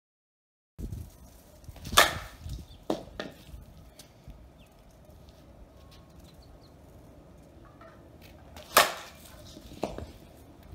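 Softball bat striking softballs off a batting tee: two loud, sharp hits about seven seconds apart, each followed by a few smaller knocks.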